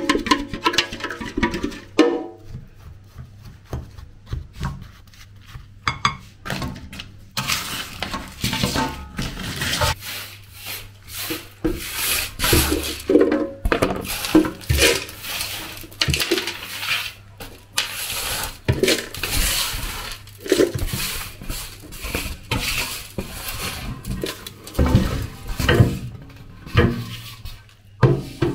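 Hand sweeping and scraping ground cocoa across an aluminium tray, a run of irregular scratchy rubs and light metallic knocks. Music plays briefly at the start.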